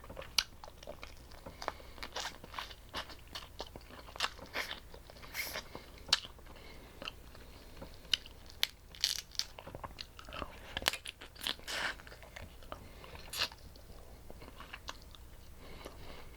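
A person eating seafood boil, chewing and crunching with many irregular sharp cracks and clicks and no talking.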